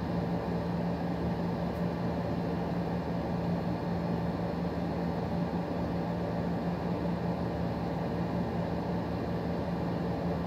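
Steady background hum: a constant low droning tone over an even rushing noise, unchanging throughout.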